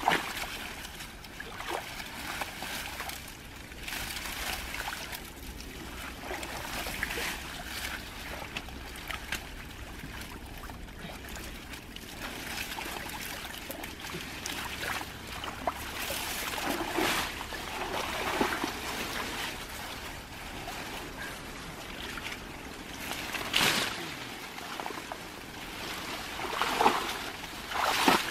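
Shallow water sloshing and trickling as a fine mesh net is hauled through water hyacinth, with a few louder splashes in the second half.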